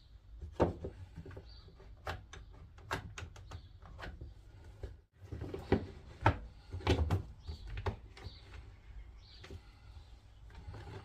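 Irregular clicks and knocks of clamps and wooden boards being handled and tightened during a glue-up, a few of them louder thuds.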